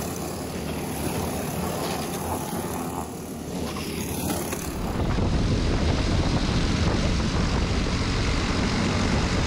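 Briggs & Stratton LO206 four-stroke single-cylinder kart engines running as the karts pass, heard from trackside. About five seconds in, the sound switches abruptly to an onboard kart's own LO206 engine running at speed, louder and heavier in the low end.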